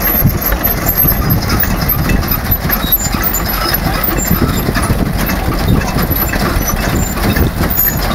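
An antique belt-driven threshing machine running, with a steady, dense mechanical clatter and rumble from its belts, pulleys and moving parts, and an engine running underneath.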